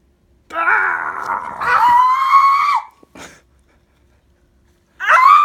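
A person screams, high-pitched, for about two seconds, then cries out again more briefly near the end, as a blackhead in the ear is pressed out with a comedone extractor.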